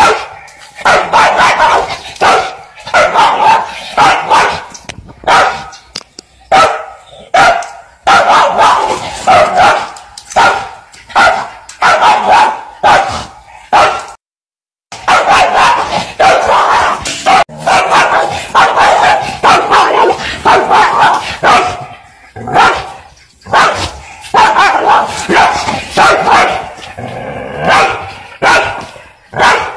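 A dog barking loudly over and over, in quick runs of barks, with a brief break of total silence a little under halfway through.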